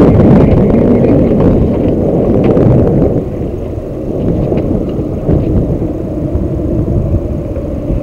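Wind buffeting the camera microphone on an open boat: a loud, even low rumble that eases somewhat about three seconds in.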